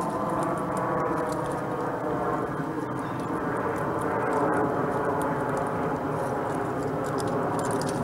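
Gray squirrel cracking and chewing seeds at a platform feeder: faint, crisp clicks scattered over a steady low rumble that is the loudest sound throughout.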